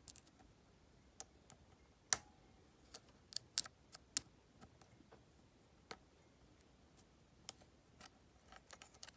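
Irregular light metallic clicks and ticks of a lock pick and tension wrench working inside the keyway of an Ace 70mm disc padlock, with one sharper click about two seconds in.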